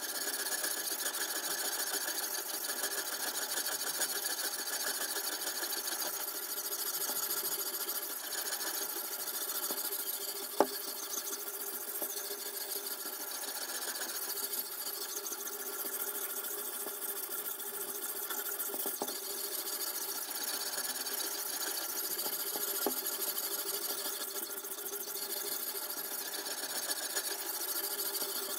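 Sharpening stone on the guide rod of a toohr #2 guided knife sharpener being stroked along a kitchen knife's edge: a steady abrasive rasp of stone on steel. A single sharp click comes about ten and a half seconds in.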